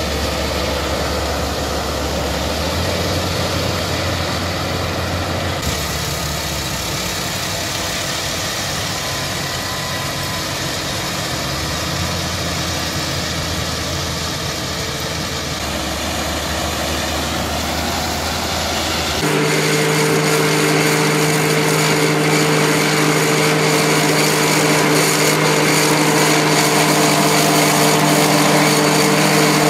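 Kubota ZR6130 combine harvester running steadily as it harvests rice. About two-thirds of the way in, this gives way abruptly to a tractor-driven Champion 2200 harvester cutting standing rice: a slightly louder, steady machine hum with several held tones.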